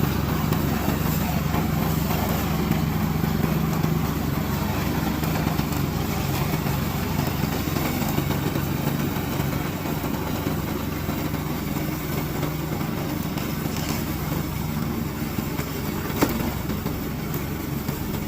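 Remote-control tracked slope mower's engine running steadily, with one short sharp tick about sixteen seconds in.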